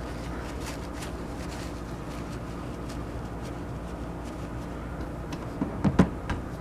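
A cleaning brush scrubbing gunpowder fouling off a Beretta 92FS pistol slide: faint, repeated brushing strokes over a steady low hum, with a few sharp knocks near the end.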